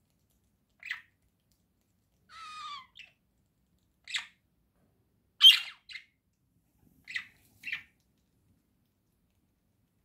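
Budgerigar calls: a series of short, sharp squawks, about seven in all, with one longer warbling call about two seconds in. The loudest squawk comes about five and a half seconds in.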